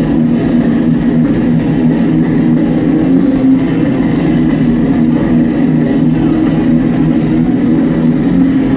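Thrash metal band playing live at high volume, heard from far back in an open-air crowd. Distorted electric guitars and drums blur into a dense, steady wall of sound.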